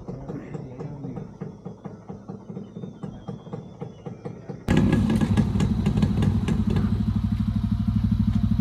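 Motorcycle engine idling with an even, steady beat: fainter at first, then suddenly much louder and closer about four and a half seconds in.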